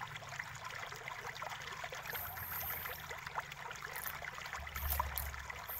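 Light clicks and rubbing as fingers handle the fan and flex cables of an opened laptop, over a steady faint hiss, with a soft low bump near the end.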